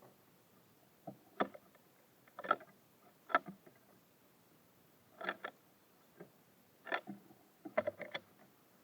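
Birds at a feeder making short sharp taps and knocks, pecking and hopping on it, in irregular clusters of one to three taps a second or two apart.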